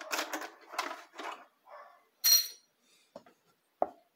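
Small metal clicks and rattles as a snap-on presser foot is released from a sewing machine's presser bar and handled, then one loud, ringing metal clink about two seconds in, followed by a couple of faint clicks.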